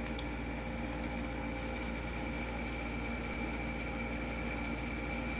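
Steady machine hum with several faint steady tones, one of them a thin high whine, and a couple of faint clicks just after the start.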